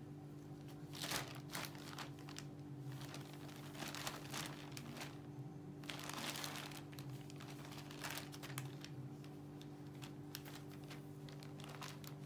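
Thin plastic shopping bag crinkling and rustling in irregular bursts as a kitten crawls around inside it. A steady low hum runs underneath.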